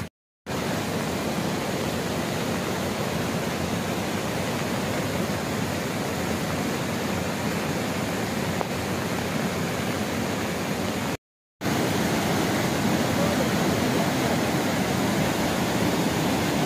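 Muddy floodwater of a mountain stream in spate rushing past in a steady, loud wash of noise. It is broken by two short gaps of silence, just after the start and about eleven seconds in.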